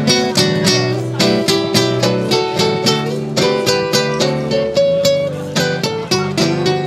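Acoustic guitar played fingerstyle, solo, with plucked notes in a steady run of about four a second.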